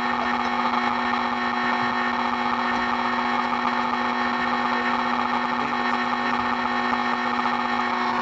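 Electric motors of a multirotor drone running at a steady idle, a constant whine made of several tones.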